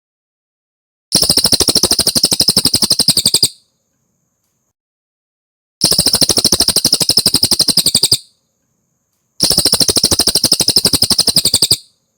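Cililin songbird giving three fast, high trills, each about two seconds of rapidly repeated notes, separated by a few seconds of silence.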